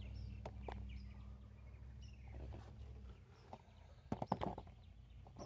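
Faint clicks and knocks of a plastic engine oil filler cap being handled, with a quick cluster of louder clicks about four seconds in. Birds chirp faintly, and a steady low hum stops about three seconds in.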